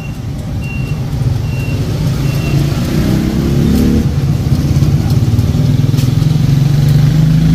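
A motor vehicle engine running, its pitch rising briefly about three seconds in and growing louder toward the end. Four short, high beeps sound in the first few seconds.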